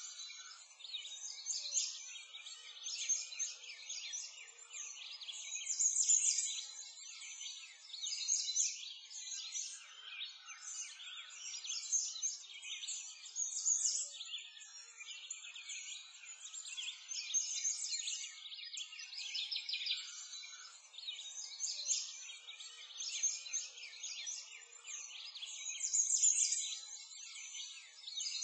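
A dense chorus of many small birds chirping and twittering without pause, the whole sound high-pitched and thin, swelling and fading every few seconds.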